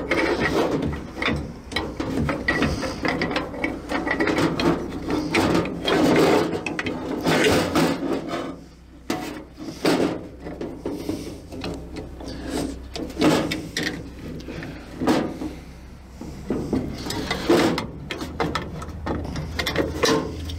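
Steel drum-brake hardware scraping, clinking and clicking irregularly as a return spring and the star-wheel adjuster are worked into place on the brake shoes.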